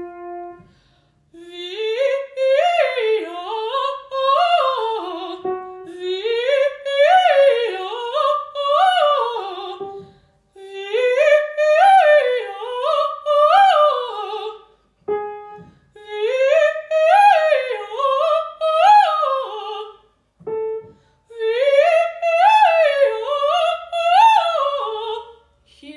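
Trained female operatic voice singing a warm-up exercise: five phrases of quick runs up and down the scale, each a few seconds long, with short breaths between them. A brief piano note sounds before most phrases to give the starting pitch.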